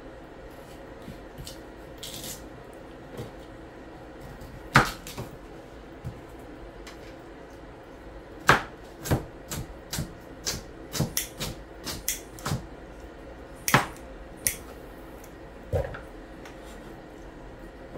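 Kitchen knife slicing a peeled carrot on a plastic cutting board: irregular sharp knocks of the blade striking the board, with a quicker run of cuts about halfway through.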